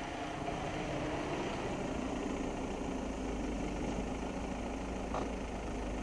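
A Volkswagen Golf hatchback rolling slowly up and pulling in to park, its engine running at low speed, with a short squeak about five seconds in.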